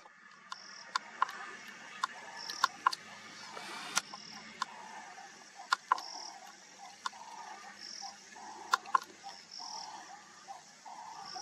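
Ambient chorus of calling insects and frogs: short high chirps repeating at uneven intervals over lower intermittent croaking notes, broken by a scatter of sharp, loud clicks.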